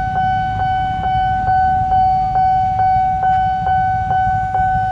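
Railway level-crossing warning bell sounding while the barrier is down for an approaching train: a steady ringing tone struck about twice a second. Under it is the low rumble of motorcycles and cars waiting at the barrier.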